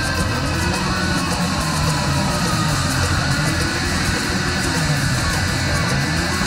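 Loud heavy rock music from a band, driven by electric guitar, playing steadily without a break.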